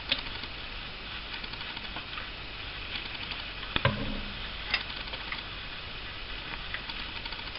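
A few light clinks of a metal ladle and fork against an enamel pan, a metal pouring jug and glass jars, over soft pattering of thick hot marmalade being poured into the jars. The sharpest clink comes about halfway through.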